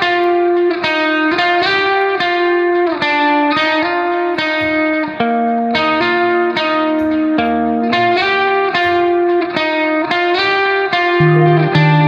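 Background music: an electric guitar playing a plucked melody with effects.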